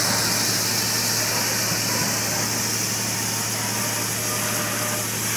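British-built narrow-gauge steam locomotive standing in steam: a steady hiss with a low, steady hum beneath it.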